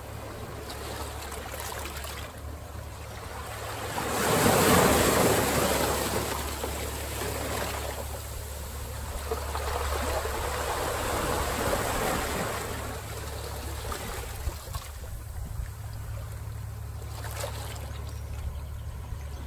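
Ocean surf breaking: one wave crashes loudly about four seconds in and washes out, and another swell builds and fades near the middle, over a steady low rumble of wind on the microphone.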